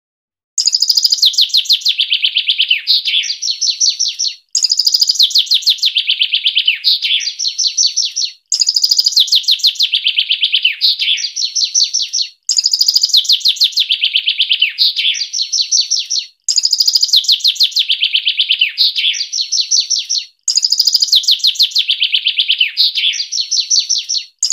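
A songbird's fast, dense song phrase about four seconds long: a rapid run of high notes that steps down in pitch, then a short higher flourish near its end. The same phrase repeats identically six times with brief gaps, a looped masteran recording made for training caged songbirds.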